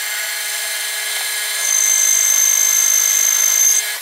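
Metal lathe running with its chuck spinning while a metal tube is bored out on the inside. A steady machine noise with fixed high tones, which grows louder with a high, steady whine from a little under halfway through.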